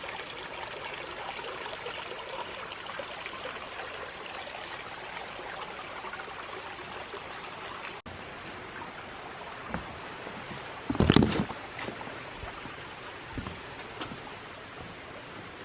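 A small stream flowing steadily with a constant rushing sound. About eleven seconds in comes a brief loud rumbling bump.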